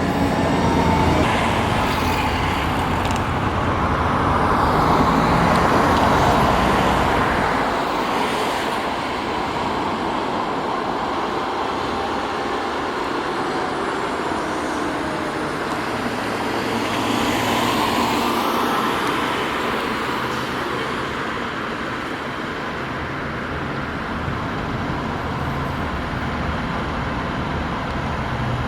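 Road traffic with vehicles passing, swelling loudest as one goes by about four seconds in and again around seventeen seconds.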